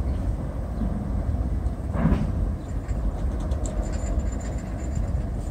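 Norfolk Southern mixed freight train rolling across a steel railroad bridge: a steady low rumble, with a single clunk about two seconds in and a faint thin high squeal in the middle.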